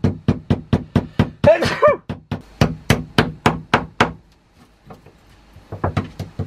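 Mallet rapidly striking a punch held against a sailboat's chain plate to drive the stuck plate out of the hull: sharp strikes about four a second, a break of under two seconds, then a few more strikes near the end.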